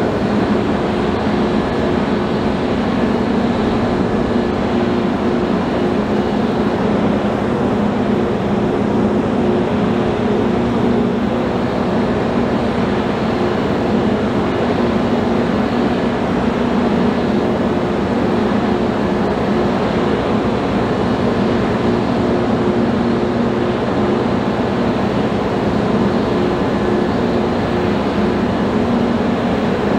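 Steady droning hum from a berthed ferry's engines and machinery, with a few steady low tones and no change throughout.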